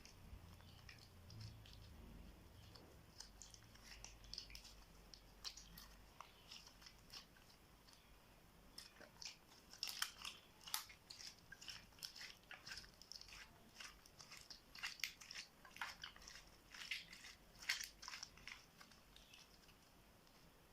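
Clear slime being worked and stirred with makeup mixed in, giving faint, irregular sticky crackles and small pops. They come more thickly about halfway through.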